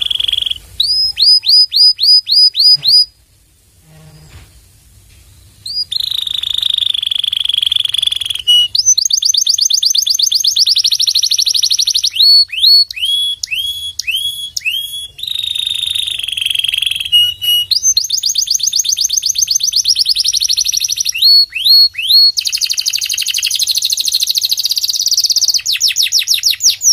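Domestic canary singing in phrases of many quickly repeated identical notes. The phrases switch between down-sweeping whistles, fast rolls and held whistles, with a pause of about three seconds near the start.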